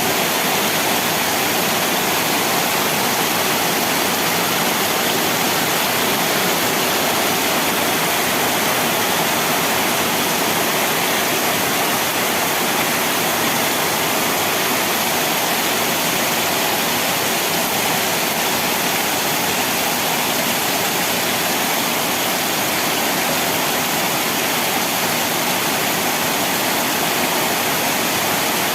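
Heavy rain pouring steadily: an even, unbroken rushing noise with no single drops or knocks standing out.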